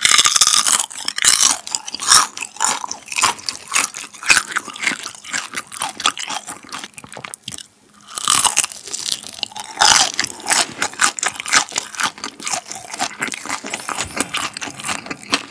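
Close-up crunching of deep-fried xiang la shrimp (fragrant spicy fried shrimp) and its fried chili pepper being bitten and chewed. There is a brief lull just before halfway, then a fresh bite into a fried shrimp and more crisp crunching.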